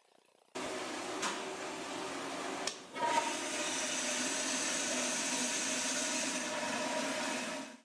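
Toilet flushing: water rushing and swirling down the bowl. It starts suddenly, breaks off for a moment about two and a half seconds in, then runs on and cuts off abruptly near the end.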